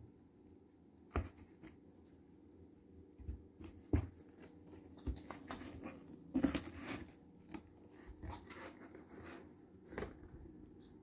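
Cat pawing and nudging at a cardboard box: scattered knocks and cardboard scraping and rustling, the longest rustle about six and a half seconds in.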